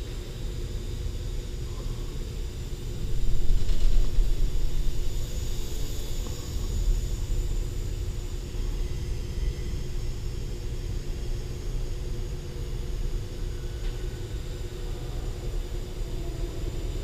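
Faint high whine of the Vapor micro indoor airplane's electric motor and propeller, wavering in pitch as the throttle changes, over a steady low rumble that swells about three seconds in and is the loudest sound throughout.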